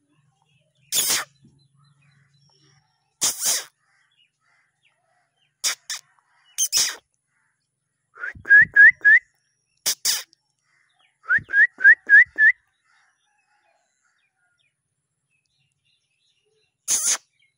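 A bird calling in two runs of short rising chirps, four and then five, about halfway through, among scattered short hissing bursts.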